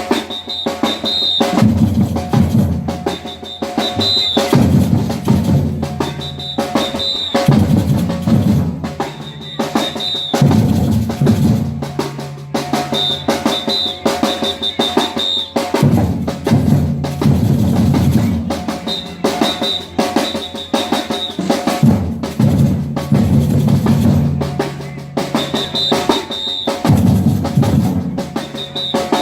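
Batucada percussion ensemble playing a fast, dense drum groove, with deep bass-drum phrases swelling in every few seconds and short high-pitched tones cutting in every two to four seconds.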